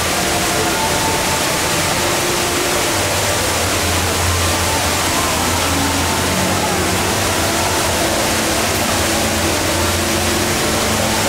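The HSBC Rain Vortex indoor waterfall pouring down in a steady, loud rush of falling water.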